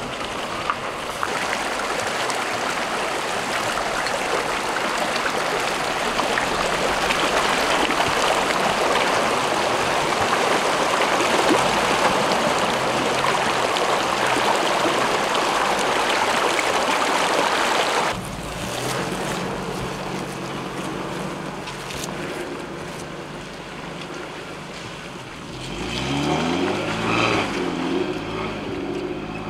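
Steady rush of shallow creek water, giving way suddenly about two-thirds of the way in to a Toyota 4x4 pickup camper's engine running at low speed off-road, revving up and down near the end.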